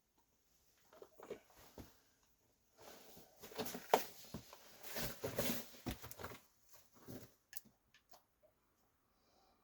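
Close scuffing, rustling and light knocks, like someone moving about and handling gear on rock, in a small enclosed space. The noise is busiest in the middle and thins to a few clicks near the end.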